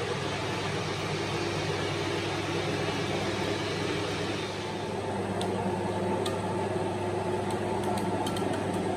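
Marble-cutting machinery running with a steady mechanical hum over a constant low drone, and a few faint ticks in the last few seconds.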